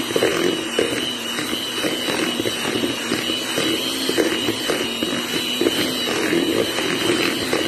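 Electric hand mixer running steadily, its beaters churning a thick psyllium and nut-flour bread dough, with a constant high motor whine.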